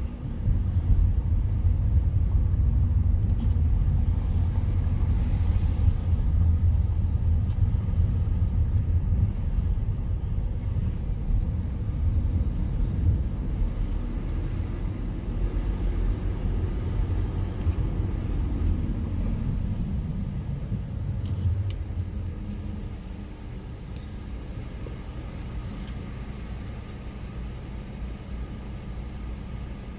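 Car interior road noise while driving: a steady low rumble of tyres and engine. About two-thirds of the way through it drops to a quieter steady hum as the car slows and comes to a stop.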